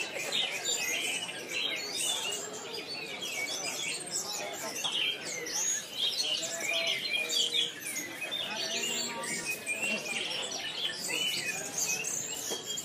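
Many caged songbirds singing at once in a contest round, a dense mix of overlapping chirps, whistles and trills that never pauses.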